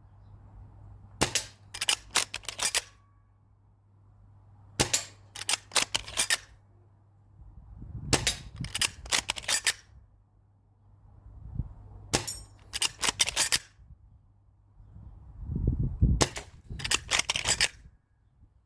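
S&T Type 97 spring-powered bolt-action airsoft rifle being worked and fired: five groups of sharp metallic clicks and snaps, each a single click followed by three quicker ones, about every three to four seconds.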